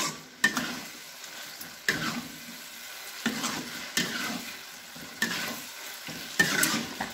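Spatula scraping and tossing chicken pieces in a thick sauce in a nonstick wok, about one stroke a second, over a steady sizzle of the sauce cooking.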